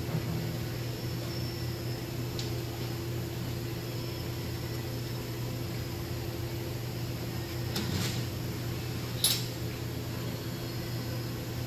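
Steady mechanical hum of workshop equipment, with a few light clicks of bolts and small metal parts being handled. The sharpest click comes a little after nine seconds in.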